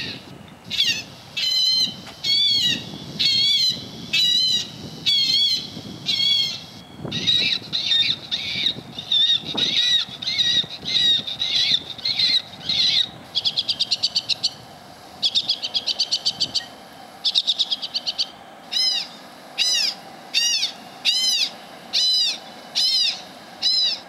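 Electronic bird scarer broadcasting loud, evenly repeated bird-like calls through a loudspeaker to drive birds off a landfill. The calls come about once or twice a second and switch pattern: warbling calls at first, rapid pulsed trills about halfway through, then arching chirps, before cutting off at the end.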